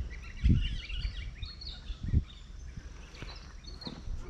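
Small birds chirping and twittering, with low thuds on the microphone about half a second in, about two seconds in and near the end.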